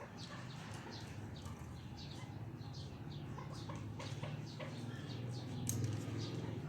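Chukar partridges chirping: many short, high, falling chirps in quick, irregular succession over a steady low hum.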